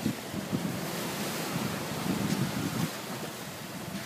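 Open-sea water washing and splashing, with wind buffeting the microphone in uneven gusts.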